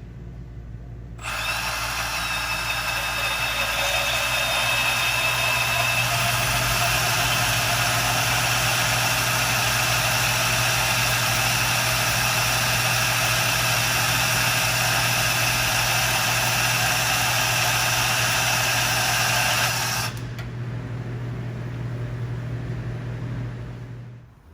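Milwaukee M12 Fuel cordless bandsaw cutting through a steel 8.8 metric bolt. A steady cutting screech with ringing tones starts about a second in and cuts off sharply after about 19 seconds as the cut finishes. The motor hums on for a few seconds more and stops near the end.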